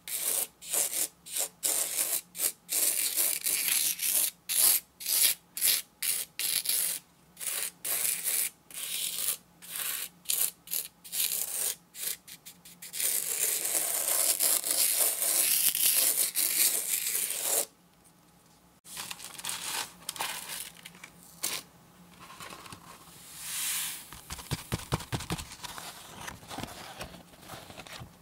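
Plastic spoon scraping and pressing loose craft sand across a sticky sand-art sheet, first in quick repeated strokes, then in one longer continuous scrape. After a short pause, softer rustling and crackling as the paper sheet is picked up and the sand slides off.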